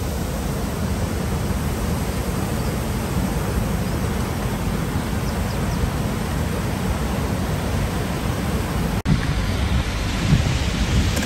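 Wind buffeting a phone microphone in a storm, a steady rushing noise with a heavy low rumble. About nine seconds in the sound cuts out for an instant and comes back gustier.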